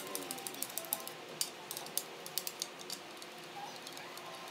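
A hand-held cue burnisher rubbed briskly against the end of a wooden billiard cue, making rapid, irregular clicks and scratches that thin out after about three seconds.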